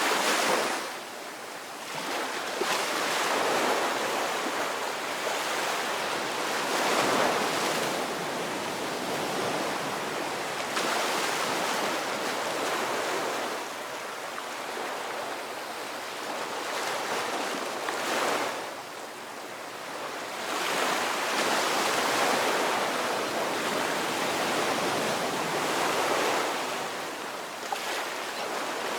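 Ocean waves breaking and washing on a shore in a continuous rush of surf, swelling and ebbing every few seconds.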